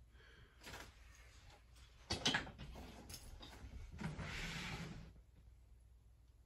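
Faint handling noises of objects being moved about: a few short knocks and rubs, the sharpest about two seconds in, and a longer rustle around four to five seconds.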